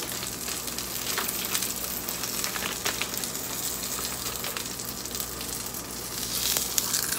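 Salmon and basil sizzling steadily in the heat, with light crackles and a few small knocks from the pan and the mini grill's lid, louder near the end.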